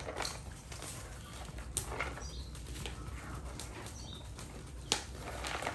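Straw broom sweeping charcoal bits and ash across concrete into a plastic dustpan: repeated soft swishing, with a few sharp clicks, the loudest about five seconds in.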